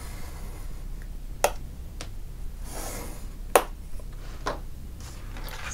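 Scoring stylus drawn along the groove of a scoring board through cardstock: two short scraping strokes and a few light clicks of the tool against board and paper.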